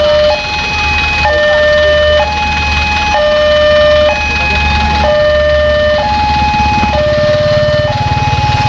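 Railway level-crossing warning alarm sounding its electronic two-tone signal, a lower and a higher tone alternating about once a second, warning that a train is approaching. A low rumble runs underneath and grows a little stronger near the end.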